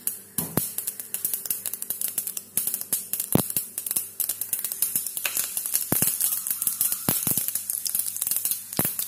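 Hot oil crackling and spluttering in a small pan on a gas stove as a tempering for chutney is fried, with many sharp pops scattered throughout. Curry leaves are in the pan near the end.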